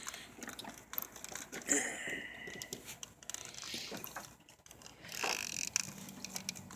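Scattered small clicks and rattles of hands working an electrical connector (socket) loose.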